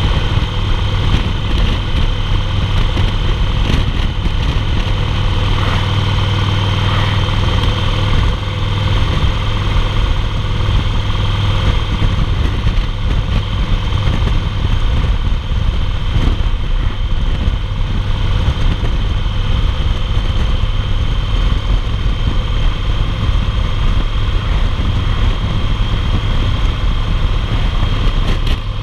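2008 Yamaha Roadliner (XV1900) V-twin engine running steadily at highway cruising speed, with a continuous rush of wind and road noise over it.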